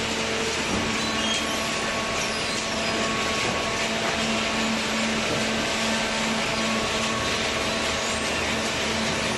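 Industrial cardboard shredder and baler running steadily: a dense, even mechanical noise with a constant hum.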